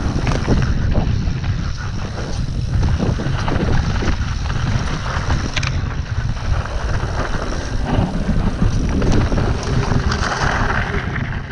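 Wind buffeting the microphone of a camera on a mountain bike descending dirt singletrack, over the rumble of the tyres rolling on dirt and scattered clicks and rattles from the bike. Near the end a brighter hiss comes in as the tyres run onto gravel.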